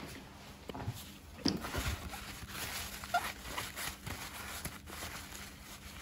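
Paper towel rustling and crumpling as a brass lock faceplate is rubbed dry, with irregular small clicks and knocks of handling and a louder knock about a second and a half in.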